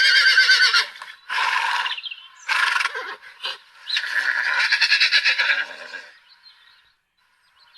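A recorded horse neighing, the sound built into a Google 3D augmented-reality horse: a string of whinnies with a wavering pitch, a long one at the start, two shorter ones, then another long one that ends about six seconds in.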